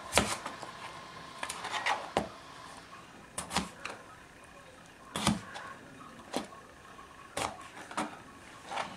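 Kitchen knife cutting red potatoes into wedges on a cutting board: a series of about ten sharp knocks at irregular intervals as the blade goes through the potato and strikes the board.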